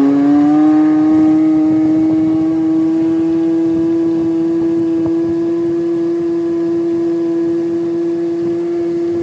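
1997 Johnson 6 HP two-stroke outboard motor running under way at speed. Its steady note rises slightly in the first second, then holds even.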